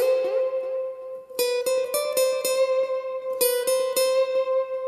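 Steel-string acoustic guitar playing an unaccompanied single-note lead melody in A minor. It slides up into a held note, then plays a run of quickly picked notes about a second and a half in, and another run near the end.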